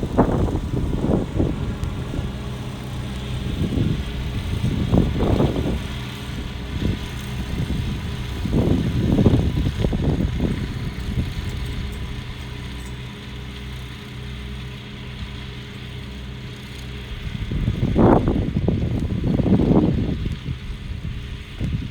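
New Holland T4.110f tractor's diesel engine running steadily while it mows, with irregular swells of low rumbling noise every few seconds.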